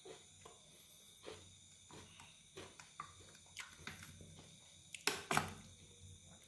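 Light crackles and clicks as a piece of crispy fried chicken is handled and sauce is squeezed onto it from a plastic squeeze bottle, with a short louder splutter about five seconds in.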